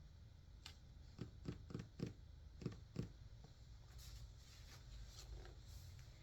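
About seven light clicks and taps in quick succession, then a faint rustling.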